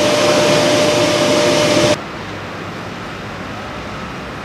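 EF66 electric locomotive's cooling blowers running close by: a loud steady hiss with a single steady whine. About two seconds in this cuts off sharply to a quieter steady rumble of loaded flat wagons rolling past.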